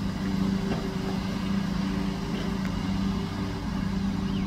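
An engine running steadily at low speed: a constant low hum with a steady tone.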